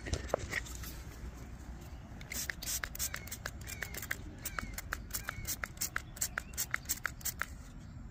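Small finger-pump spray bottle spritzing a dug coin in a quick run of short squirts, about four a second, to wash the dirt off it.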